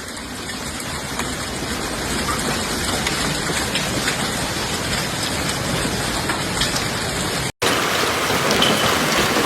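Heavy rain pouring down on surfaces in a dense, steady hiss, with a few faint ticks. About seven and a half seconds in it breaks off for an instant and a slightly louder downpour picks up.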